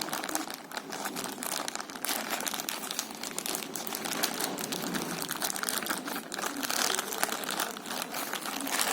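Packaging being handled and opened, crinkling and crackling continuously with many quick irregular clicks.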